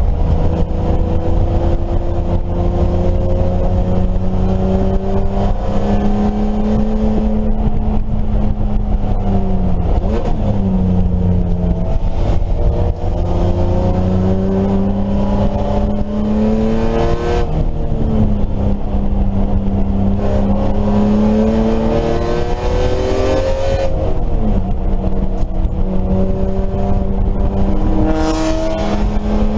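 BMW E30 race car's engine under hard acceleration on track, its pitch climbing steadily and dropping back sharply several times as it shifts gear or brakes, then climbing again.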